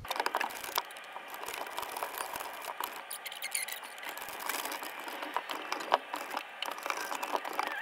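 Small washers and nuts being handled and fitted onto the mounting screws inside a plastic kayak hull: irregular light clicks, taps and scrapes.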